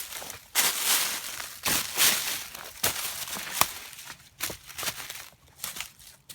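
Hiking footsteps crunching and scuffing irregularly on loose rock and gravel on a steep slope. The crunches are dense for the first few seconds, then thin out into scattered steps.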